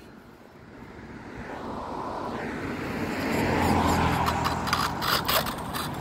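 A car coming along the road: tyre noise and engine hum swell steadily over about four seconds, then ease slightly.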